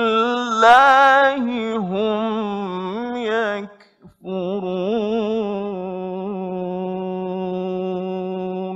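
Male Quran reciter chanting in melodic tajweed style, the voice winding through melismatic ornaments. After a brief pause for breath about four seconds in, he holds one long steady note that closes the passage and stops abruptly at the end.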